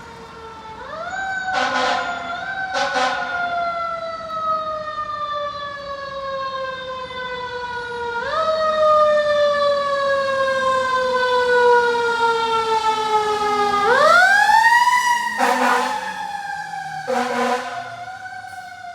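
A fire engine's Federal Q mechanical siren winds up, then coasts slowly down in pitch, and is wound up again about eight seconds in and once more near fourteen seconds. Short blasts of the engine's air horn cut in twice about two to three seconds in, and twice more around fifteen to seventeen seconds.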